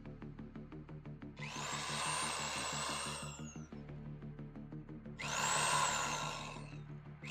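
Kobalt corded reciprocating saw running in two bursts, each spinning up to a high whine and winding down as the trigger is released, cutting hedge branches. Background music plays underneath.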